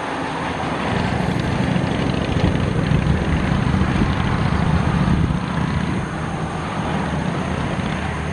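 Strong wind buffeting the microphone: a loud, rough, low rumble that swells for a few seconds in the middle and then eases.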